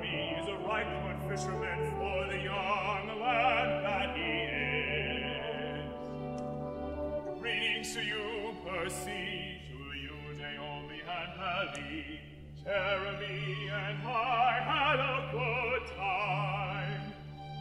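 Operatic singing with vibrato over instrumental accompaniment.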